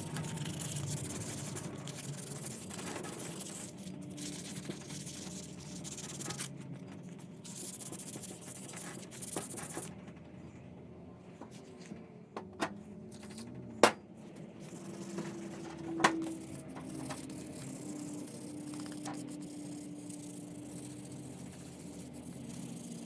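Small hard objects handled on a workbench: a few sharp clinks and knocks, the loudest two about halfway through and another soon after, over a steady low hum.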